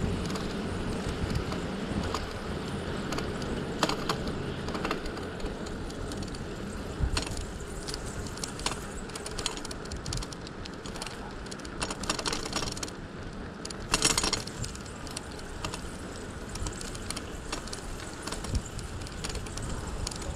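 Bicycle being ridden: a steady rush of tyre and wind noise with light metallic rattles and clicks from the bike throughout, the loudest rattle about fourteen seconds in.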